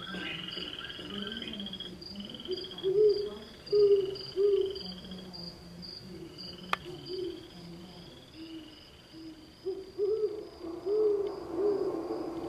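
Recorded night-time wetland animal sounds: a series of low hoots in two groups, over a steady, fast-pulsing high insect-like call and buzzy trills. A single sharp click comes about halfway through.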